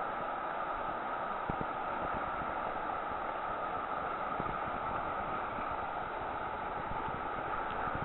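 Steady rush of whitewater river rapids, with a few faint knocks.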